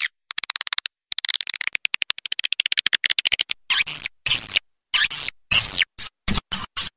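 Swiftlet call lure recording: a fast rattling trill of tiny clicks for the first three seconds or so, then a run of short, sharp, high twittering chirps broken by clean silent cuts. It is the kind of call played from speakers at a swiftlet house to draw the birds in.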